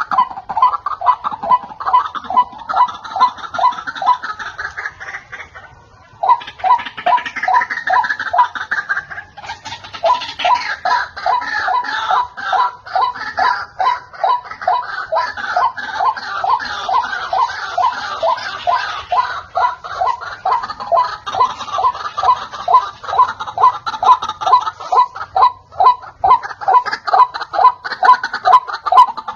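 White-breasted waterhens calling, a rapid run of harsh repeated notes at about four a second, with a brief pause about six seconds in and denser overlapping calls afterwards.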